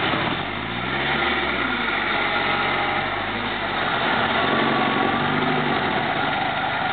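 SUV engines running and revving under load as one off-road SUV tows another out of deep mud on a line, the pitch rising and falling in surges.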